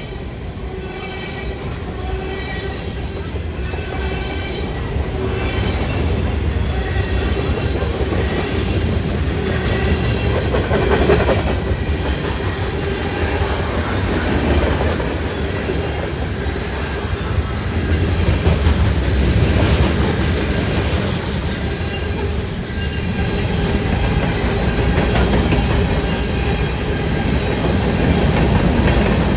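Train rolling past on the rails, a continuous rumble and rattle of its wheels and cars that swells and eases slightly.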